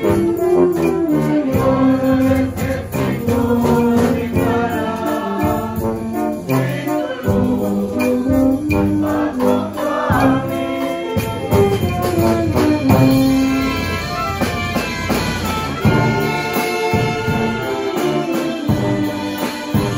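Brass band playing a tune on sousaphones, trombones and French horns, with snare and bass drum beats.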